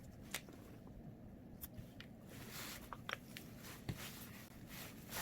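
Faint handling sounds from resin work: a few small, sharp clicks and soft rustles, as clear UV resin is squeezed into a pendant mold.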